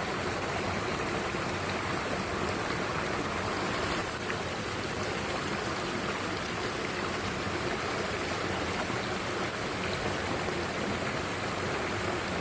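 Mountain stream rushing and burbling over rocks, a steady, even noise of running water.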